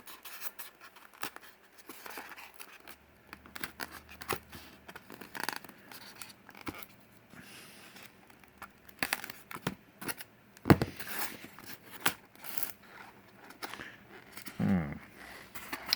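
Product packaging being worked open by hand: irregular scraping, snipping and rustling with scattered clicks, a sharp click about eleven seconds in, and a short grunt near the end.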